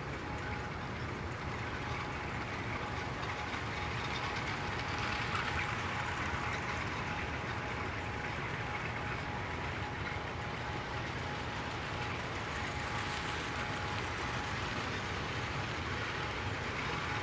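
Hornby Live Steam Seagull model steam locomotive running steadily on its track in simmer mode, with the steam valve only partly open, hauling a train of about 13 coaches. It makes a steady rolling noise with a faint steady tone.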